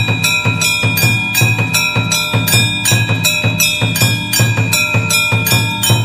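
Music with a fast, steady beat of about three to four strokes a second, each with a low thump, and a high ringing tone held above it.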